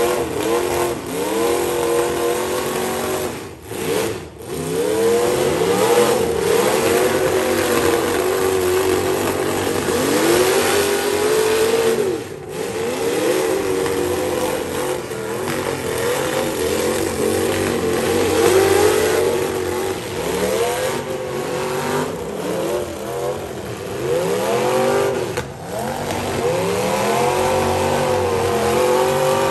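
Several demolition derby cars' engines revving up and dropping back again and again as they accelerate and reverse, several at once, their pitch rising and falling in repeated sweeps.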